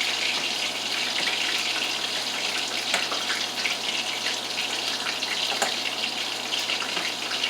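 Chicken sizzling in a frying pan: a steady hiss with an occasional pop of fat.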